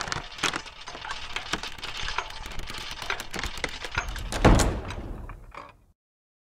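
Sound effect of a heavy containment-chamber door working: a dense run of crackling and clattering, with one heavy low thud about four and a half seconds in as it shuts, then it cuts off suddenly.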